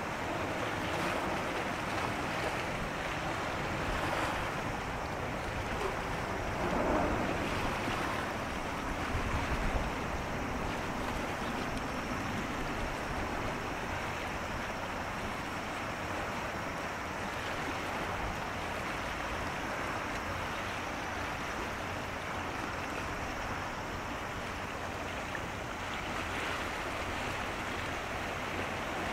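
Steady rushing noise of wind and sea water, with a few brief swells of louder wash.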